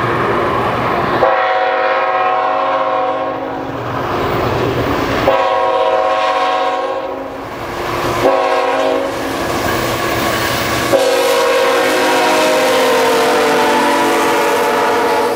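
Canadian Pacific diesel locomotive's air horn blowing the grade-crossing signal: two long blasts, one short and a final long one, each a chord of several tones. The pitch slides down during the last blast as the train passes, and the rumble of the train rolling on the rails fills the gaps.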